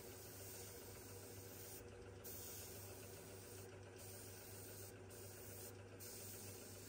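Faint, steady hiss of a compressed-air paint spray gun spraying paint, with a low steady hum underneath. The hiss cuts out briefly four times.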